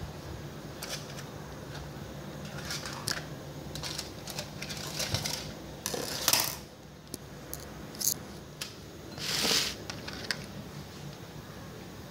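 Kitchen scissors snipping through roasted Hatch chilies: scattered sharp clicks and snips, with a louder half-second scrape about nine seconds in.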